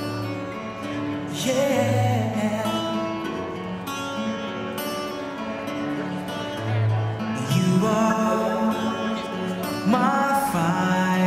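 A pop song playing, with guitar, a sung melody and a recurring low bass note.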